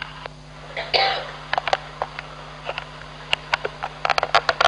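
The lead-in of a recording played from a small handheld player held against a stage microphone: a steady electrical hum with scattered irregular clicks, and a short cough-like noise about a second in.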